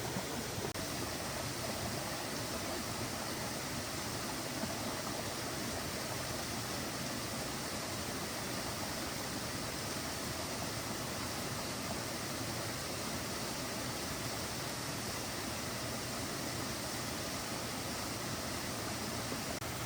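Steady rushing of water, an even, unbroken noise with no distinct events.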